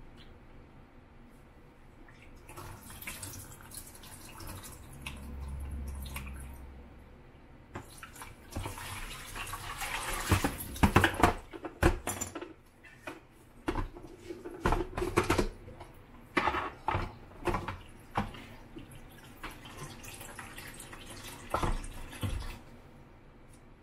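Tap water running into a plastic film-developing tank in a stainless steel sink during the film wash, followed by a series of sharp knocks and clatters as the tank is emptied and taken apart and its parts bump against the sink.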